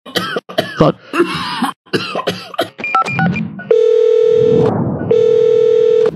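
Sound-effect track for an animated allergy sufferer: a man coughing several times in quick succession, then a brief electronic chime, then two long buzzing tones of about a second each with a short gap between them.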